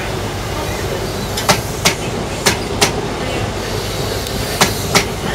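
Wheels of slowly rolling HST Mark 3 passenger coaches clicking over a rail joint. The clicks come in pairs, one per axle of each passing bogie, three pairs in all, over a steady low hum.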